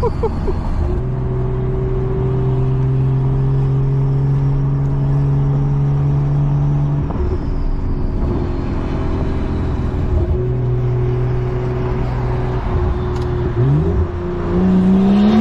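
BMW 340i's turbocharged B58 inline-six, its exhaust running through an open dump, holding a steady drone while cruising, easing off about seven seconds in, then revving up with a rising pitch near the end.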